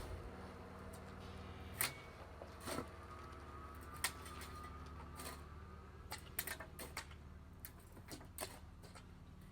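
Scattered sharp clicks and knocks, the loudest about two and four seconds in and a quick run of them around six to seven seconds, over a low steady hum.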